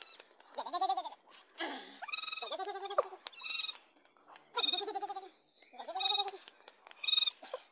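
Young goat kids bleating over and over, a string of short calls of under a second each, following one another about every second.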